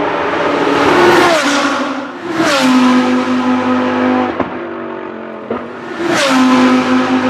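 GT3 race cars with V10 engines passing at speed. The engine pitch drops sharply as each goes by, about a second, two and a half and six seconds in, then holds steady as they pull away.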